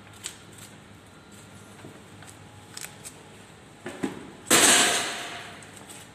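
Light clicks and knocks, then about four and a half seconds in a single loud bang with a sudden start that rings out and fades over about a second.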